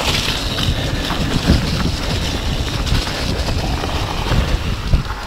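Wind buffeting the camera microphone over the rumble of a steel-framed Orange P7 mountain bike's Maxxis Minion tyres rolling fast down a muddy, leafy trail, with scattered knocks and rattles as the bike hits bumps.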